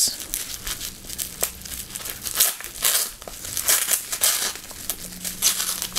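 Bubble wrap crinkling in the hands while strips of blue painter's tape are peeled off it, in a run of irregular crackles and rustles.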